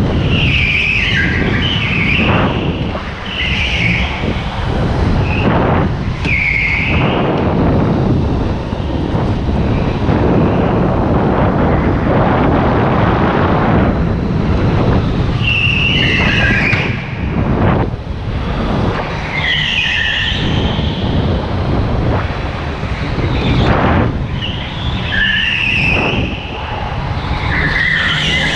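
Go-kart tyres squealing again and again through the corners of an indoor track in short high squeals, over the kart's constant loud running noise.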